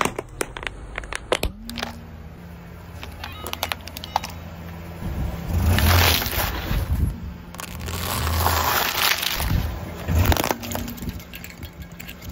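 A car tyre rolling over and crushing soda-filled balloons and other objects, over a car's steady low engine hum. There is a run of sharp cracks in the first second or so, then several loud crunching stretches in the second half.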